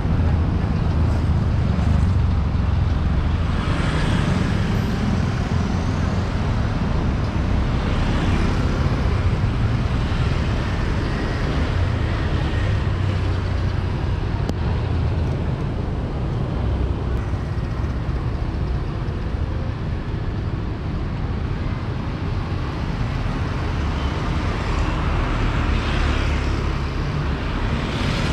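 Street ambience with road traffic passing, a steady noisy rumble that swells now and then as vehicles go by.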